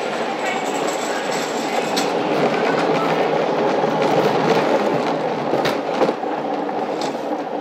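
Luge cart's wheels rolling over the concrete track: a steady rattling rumble that swells slightly midway, with a few sharp clacks, one about two seconds in and a couple near the end.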